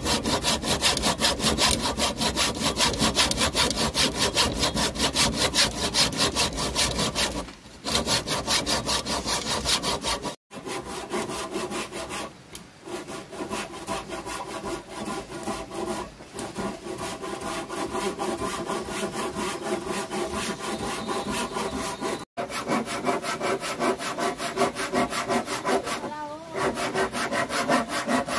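Hand saw cutting through an old weathered wooden plank, in fast, steady back-and-forth strokes with a few short pauses.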